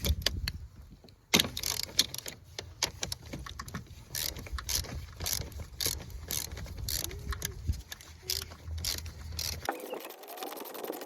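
Socket ratchet clicking and metal clinking as the 13 mm battery hold-down fasteners are worked loose, a few sharp clicks a second, over a low hum that stops near the end.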